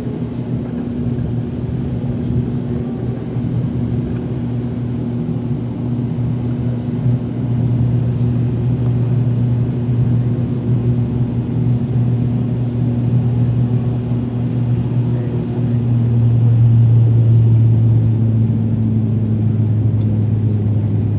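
Airliner cabin noise in flight: a steady drone from the aircraft's engines with a low hum, swelling louder about seven seconds in and again near the end.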